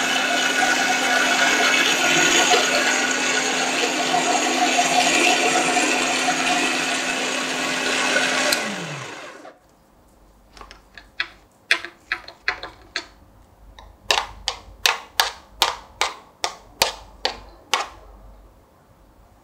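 Yonanas frozen-fruit dessert maker running while its plunger pushes frozen fruit through the chute: a steady motor hum with grinding noise. It is switched off about eight and a half seconds in and winds down. Then comes a run of sharp clicks and taps, about three a second at their busiest, from a metal spoon against the plastic bowl.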